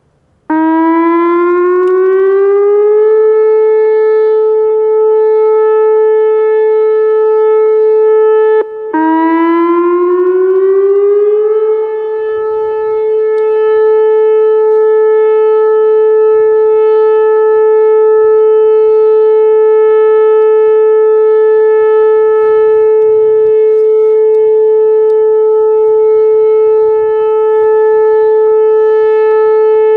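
Whelen 2810 electronic outdoor warning siren sounding its steady alert tone. The pitch rises for a couple of seconds and then holds. About nine seconds in it cuts out for a moment, rises again and holds one steady tone.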